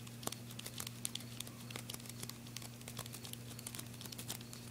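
A small knife blade sawing and scoring into the plastic hull of a 12-gauge shotgun shell, making rapid, irregular little clicks and scrapes.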